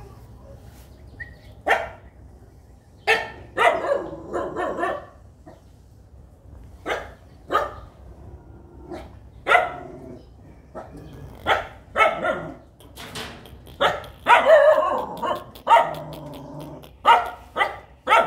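Dogs barking in many short, sharp barks at irregular intervals, with denser flurries of barking about a quarter of the way in and again about three-quarters through.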